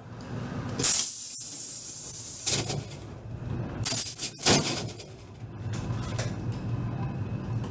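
Interior running noise of an ED4M electric commuter train, a steady low hum, broken by sharp hissing bursts about a second in and again around four and four and a half seconds in.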